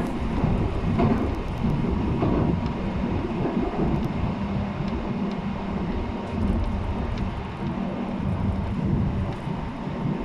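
JR East 719 series electric train heard from inside the car while running between stations: a continuous low rumble from the wheels and running gear, with a faint steady whine. This set is known for an unusual running noise.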